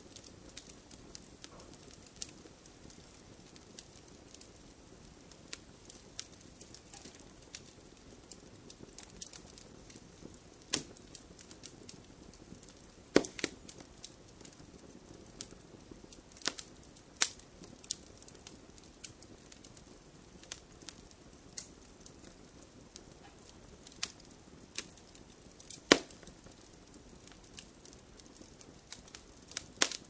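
Wood fire crackling in a fireplace: a steady low hiss of flames with frequent, irregular sharp pops and snaps. A handful of pops are much louder than the rest, the loudest about 13 and 26 seconds in.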